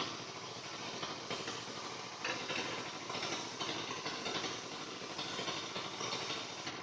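A small motor running steadily with a rough, hissing noise, a little louder in short stretches.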